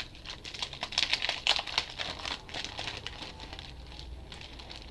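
Packaging crinkling as it is handled, a dense run of crackles through the first half that thins to a few faint ticks.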